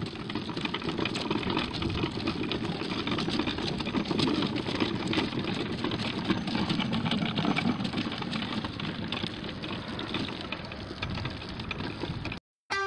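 Wheels of a homemade dog drafting wagon rolling over asphalt as the dog pulls it: a steady rumbling rattle that cuts off suddenly near the end.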